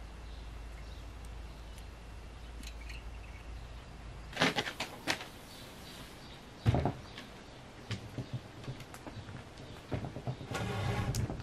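Corrugated plastic roofing sheets being handled and flexed: scattered clattering rattles and knocks, the loudest a single knock about two-thirds of the way through, with a low steady hum in the first few seconds.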